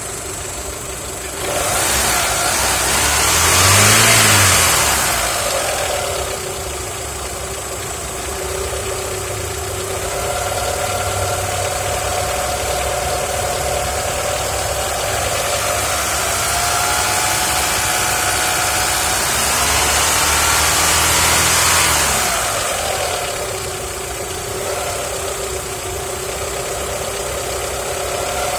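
Warmed-up Mitsubishi 4G63 inline-four engine idling with a knock, revved briefly a couple of seconds in, then held at raised revs for several seconds before settling back to idle.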